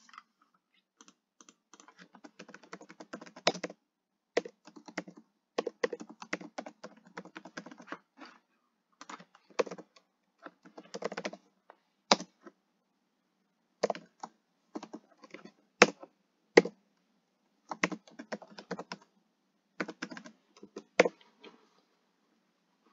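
Computer keyboard typing in bursts of rapid keystrokes with short pauses between them, a few single keys struck harder than the rest.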